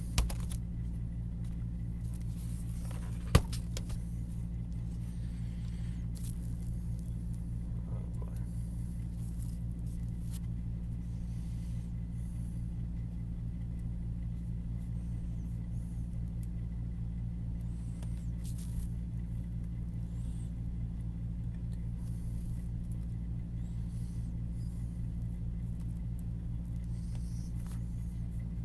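Steady low hum, with one sharp click about three seconds in and a few faint ticks.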